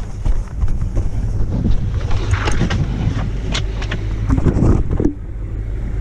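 Wind buffeting the microphone in a heavy low rumble, with a snowboard's scraping hiss over snow swelling around the middle.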